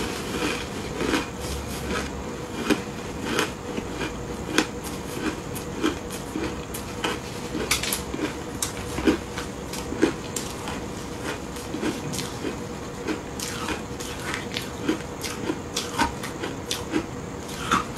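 Frozen shaved ice coated in matcha and milk powder being crunched and chewed, a rapid irregular crackle of small cracks, with chopsticks digging and knocking in a plastic bowl.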